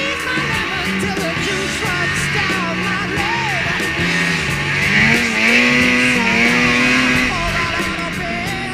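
Rock music with guitar, playing loudly.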